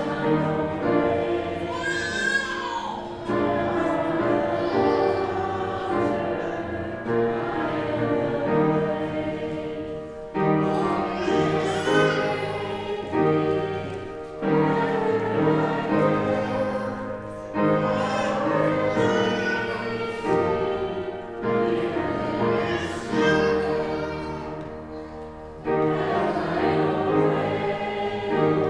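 Congregation singing a hymn with musical accompaniment, in phrases with short breaks between lines.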